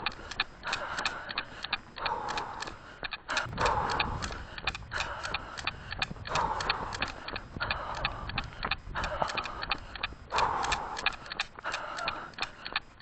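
A runner's footsteps at running pace, an even rhythm of about three footfalls a second.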